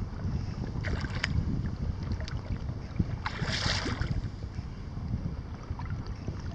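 Wind rumbling on the microphone over small choppy waves lapping close by, with scattered light splashes and a brief hissing splash a little after three seconds in.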